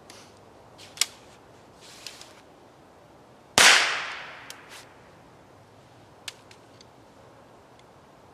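A Chiappa Little Badger TDX single-shot break-open .22 LR rifle fires once, a little over three and a half seconds in: a sharp crack with an echo that dies away over about a second. Lighter clicks from working the rifle's action come before and after the shot.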